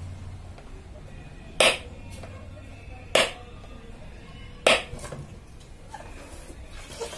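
Three sharp clicks, evenly spaced about a second and a half apart, with two fainter clicks near the end.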